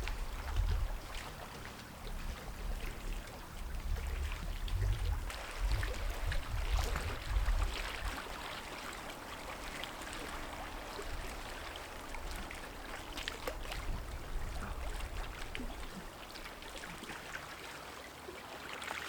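Lake water splashing and trickling, with many small sharp splashes. A low rumble runs under it for roughly the first eight seconds, then fades out.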